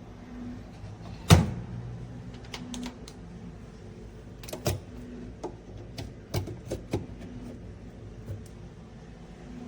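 A sharp knock about a second in, then scattered clicks and taps over a low steady hum.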